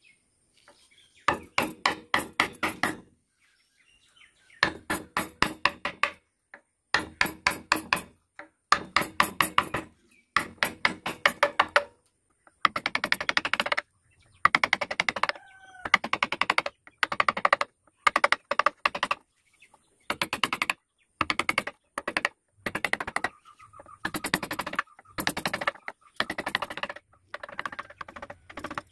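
A carving chisel is driven into wood by a mallet in quick runs of taps, each run lasting a second or two with short pauses between, as a leaf design is cut into a wooden panel.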